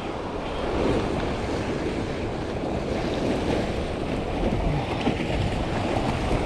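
Sea surf washing and breaking against the rocks below, with wind buffeting the microphone.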